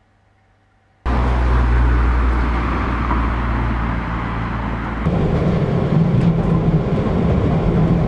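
Steady running noise of a moving vehicle, starting abruptly about a second in, its low hum shifting to a higher pitch around five seconds in.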